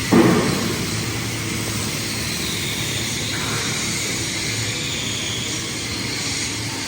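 Steady hiss of a paint spray gun applying primer to steel beams, over a low steady hum, with a brief louder burst just after the start.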